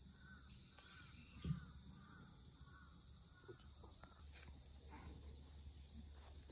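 Faint outdoor ambience: a distant bird calling in a quick series of short notes over a steady high insect drone. There is one brief low thump about a second and a half in.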